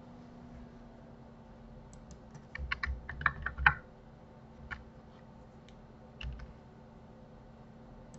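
Computer keyboard keys clicking: a quick run of keystrokes a few seconds in, then a few single clicks.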